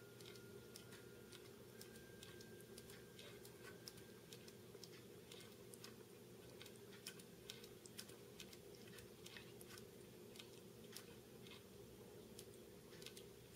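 Near silence: a low steady room hum with faint, irregular small ticks and clicks.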